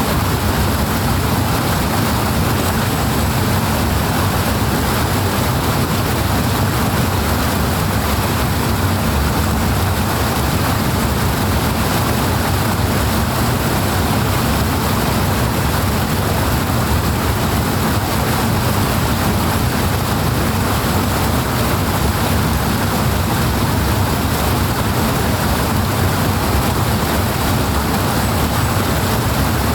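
Powerful rushing water, a steady, unbroken roar of flowing water with a deep low rumble.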